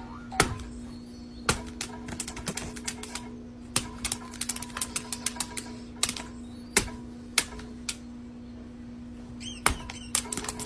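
Irregular sharp clicks and taps, bunched into quick runs around the middle, over a steady low hum.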